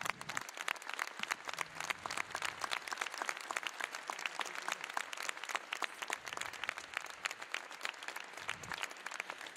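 Members of parliament applauding: many hands clapping in a steady, dense patter that thins out just before the end.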